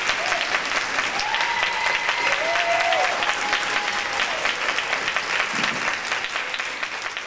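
Audience applauding steadily, the applause slowly fading toward the end.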